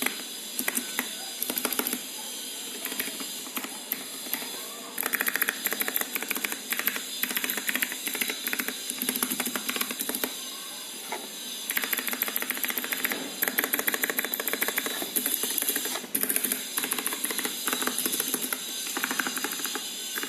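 Typing on a Magicforce 68 mechanical keyboard with clicky blue switches and typewriter-style keycaps: rapid runs of sharp key clicks in bursts, with short pauses between them, over a steady hiss.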